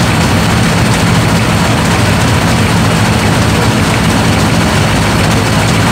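Large antique tractor engine running steadily and loudly.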